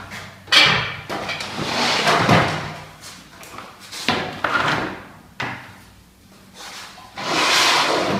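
Nap paint roller spreading wallpaper paste across a wall, a series of about five swishing strokes, each up to about a second long.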